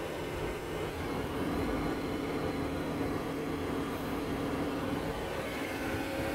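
Road and engine noise heard inside the cabin of a car moving at highway speed: a steady rush of tyres and wind with a low, even drone.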